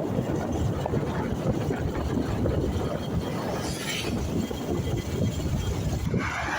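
Steady low rumble of wind buffeting the microphone, with short hissing noises about four seconds in and again near the end.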